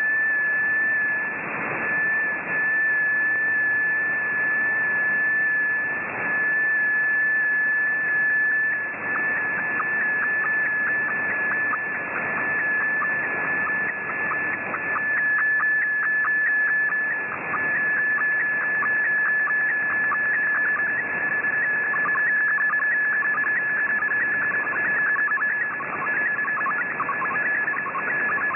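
Shortwave radio reception of an MFSK64 digital picture transmission on 9400 kHz. It is heard as a single steady data tone over radio hiss and static. From about a third of the way in, the tone is broken by rapid flickers as the picture's detail comes through.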